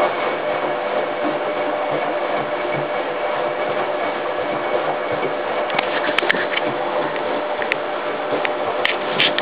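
Hoover H130E washing machine running a 90°C cottons maintenance wash, its drum turning: a steady mechanical churning noise, with a few sharp clicks in the last few seconds.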